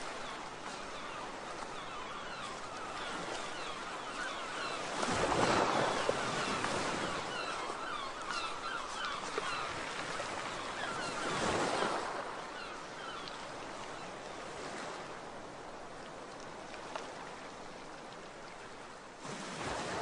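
Sea waves washing ashore: steady surf noise, with bigger waves breaking about five seconds in, again about eleven seconds in, and once more near the end.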